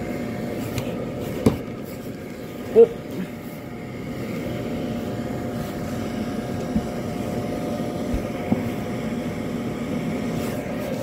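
Gemmy airblown inflatable's YF80 blower fan running with a steady hum, a sound the owner finds different from other YF80 fans. A few short knocks sound over it, the loudest about three seconds in.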